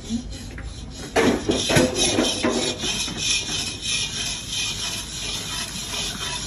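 A metal ladle scraping and knocking in a large metal kadai of boiling milk, starting loudly about a second in and running on as a steady scraping hiss.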